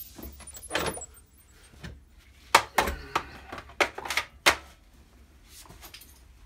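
A series of sharp knocks and clicks, about eight, irregularly spaced, the loudest bunched near the middle.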